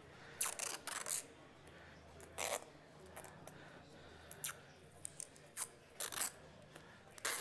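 Masking tape pulled off the roll and torn off in several short rips, with faint rustling of tape and paper between them.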